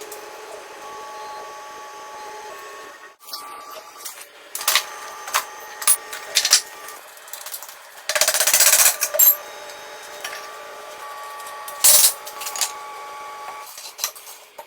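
Metal tools and parts being handled: scattered clicks and clinks, with a short rough scraping or hissing stretch about eight seconds in.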